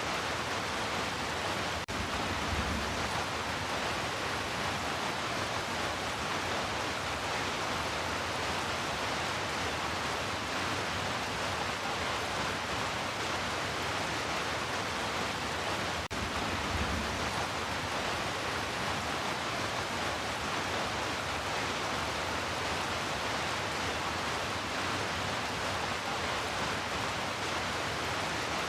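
Steady heavy rain, an even hiss with no let-up, with two brief low thumps about 3 and 17 seconds in.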